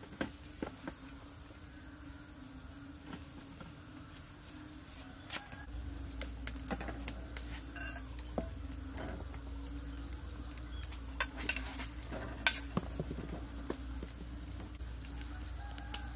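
Scattered light clicks and knocks of vegetables and utensils being handled, first at a wooden chopping block, then as onions and garlic are set on a wire grill rack over a charcoal stove. A steady low hum runs underneath, and a low rumble joins about a third of the way in.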